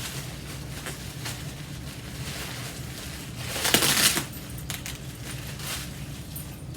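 Packing material being handled and unwrapped: light rustling and small clicks, with one louder tearing, crumpling burst lasting about half a second midway, over a steady low hum.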